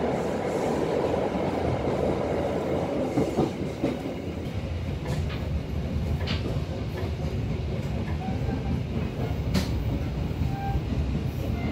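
Local passenger train running on the rails: a steady rumble of the coach and wheels, with a few sharp clicks from the wheels over the track.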